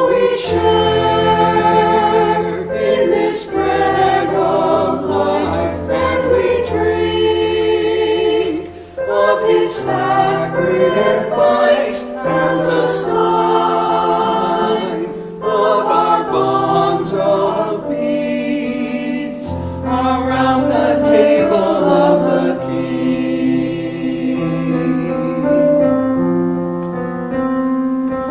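Small mixed church choir singing an anthem in parts over a sustained accompaniment. Near the end the voices thin out and the accompaniment carries on.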